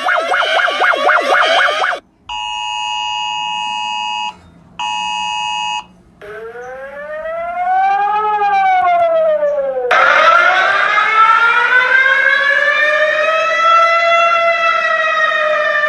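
Emergency alert alarm sounds, one after another: a fast repeating rising sweep, about four a second; then two short bursts of a steady, high multi-note alert tone; then a siren that rises and falls once. About ten seconds in, a civil-defense-style siren with a rich, full tone starts and slowly winds up in pitch.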